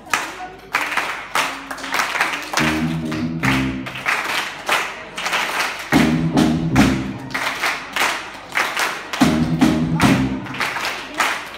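A school big band playing live: a drum kit keeps a steady beat while the horn section comes in with held chords three times.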